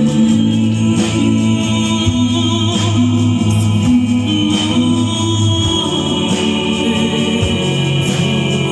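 Live concert music: held low notes that change pitch every second or so, under a high sustained line.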